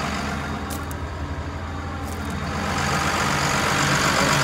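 Caterpillar D5M crawler dozer's diesel engine idling steadily, growing louder about three seconds in.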